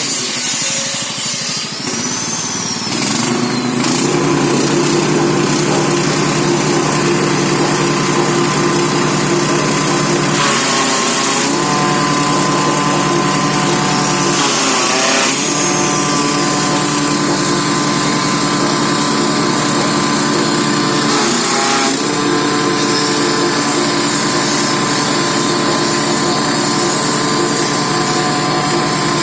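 Grass chopper machine running at steady speed, its note coming up to full speed in the first few seconds, then dipping briefly three times and recovering.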